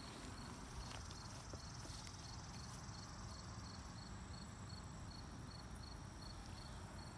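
Insects chirping faintly in a steady, evenly repeated high chirp, about two to three a second, over a low rumble.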